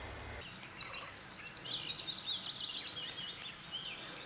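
Songbirds chirping in spring woodland over a high, steady, buzzing trill that starts about half a second in and stops just before the end.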